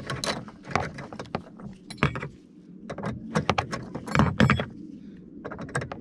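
A Torx key undoing a T27 Torx bolt in a car door card's pull-handle recess: irregular small metallic clicks and rattles as the key turns in the bolt head and knocks against the plastic trim, loudest around four seconds in.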